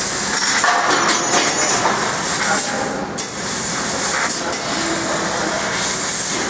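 Fiber laser cutting machine cutting 1.5 mm stainless steel sheet: a steady, loud hiss of assist gas jetting from the cutting-head nozzle as the head travels along the cut, dipping briefly about three seconds in.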